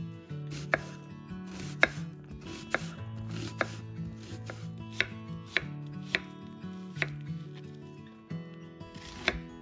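Chef's knife slicing an onion into half rings on a wooden cutting board: about nine separate cuts, roughly a second apart, each ending in a sharp knock of the blade on the board.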